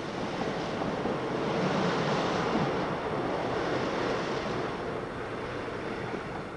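Diesel-hauled merry-go-round coal train passing beneath: a steady rush of engine and wheels that swells over the first couple of seconds, then slowly fades.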